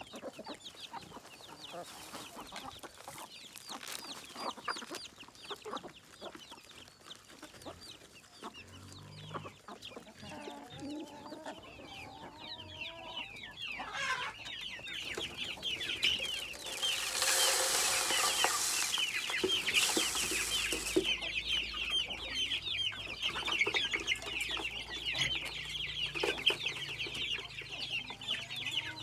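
Chickens clucking and calling, with many short high cheeping calls that grow dense and continuous from about halfway through. A brief rushing noise stands out for about two seconds just after the middle.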